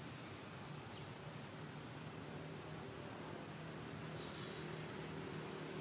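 An insect calling in short, even, high-pitched trills, each about half a second long and repeated roughly once a second, over a steady outdoor hiss.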